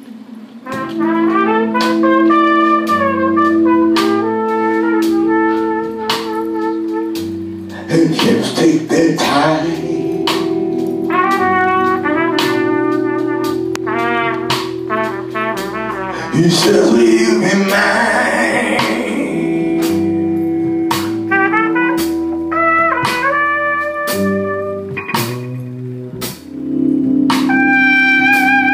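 Jazzy soul band playing, with a trumpet carrying the melody over a stepping bass line and a steady drum beat.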